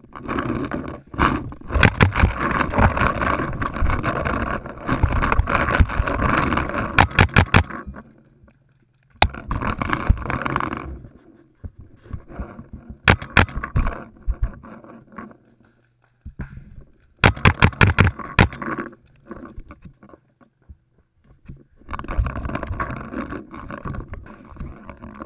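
Paintball marker firing close to the microphone: single shots and several fast strings of shots. Between them, loud scraping and rustling of the player moving and crouching.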